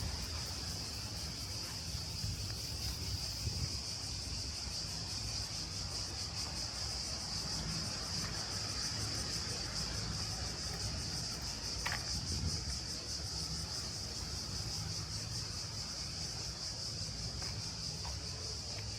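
Cicada chorus: a steady, shrill, rapidly pulsing buzz over a low background rumble, with one brief squeak about twelve seconds in.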